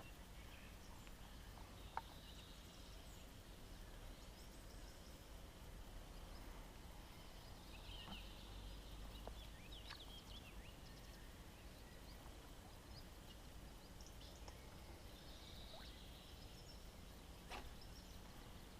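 Near silence: faint outdoor background with distant bird calls now and then, and a soft click about two seconds in and another near the end.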